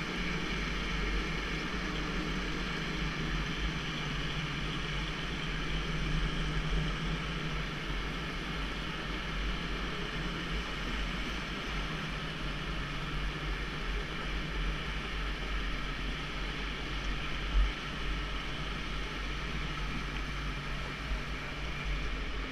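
Electric indoor go-kart running at speed, its motor giving a steady whine over a low rumble, with one short sharp bump about three-quarters of the way through.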